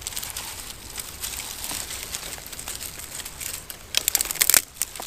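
Small newly lit fatwood and twig kindling fire crackling, with dry sticks being handled over it, and a burst of louder snaps about four seconds in.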